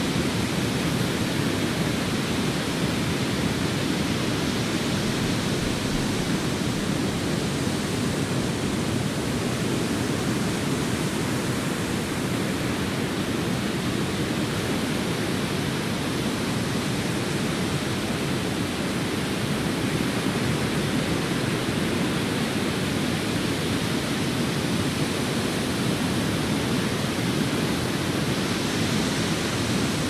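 Steady white-noise hiss, even across the range and unchanging in level, with no swells or breaks.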